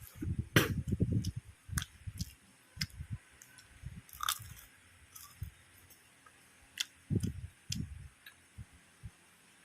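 Close-up chewing and crunching of crispy fried food, lumpia and fries, in irregular bites, heaviest in the first second or so, thinning out, then picking up again near the end.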